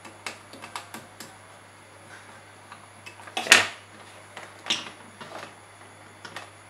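Scattered clicks and knocks from hands handling a small amplifier circuit board, a hand tool and speaker wires on a wooden desk. The loudest knock comes about three and a half seconds in.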